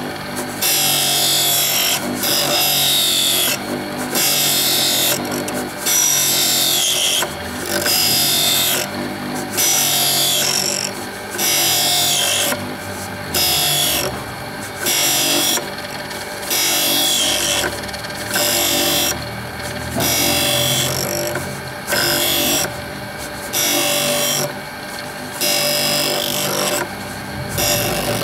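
OSG S-sharpener drill grinder running, its grinding wheel giving a steady hum under a rhythmic gritty rasp. Each rasp lasts about a second and comes back about every second and a half, as the drill is swung against the wheel in repeated strokes.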